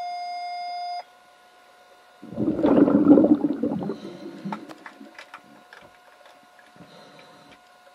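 Recorded underwater: an electronic beep for about a second, then a loud rush of churning water and bubbles as finned underwater hockey players sweep down past, fading after a couple of seconds into scattered sharp clicks of sticks and puck knocking on the pool floor.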